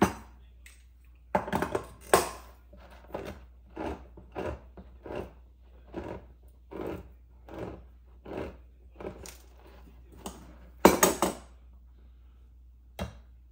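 Kitchen utensils and bowls clinking and knocking in a row of short strokes, roughly one every half second to a second, with louder clatters about two seconds in and near eleven seconds.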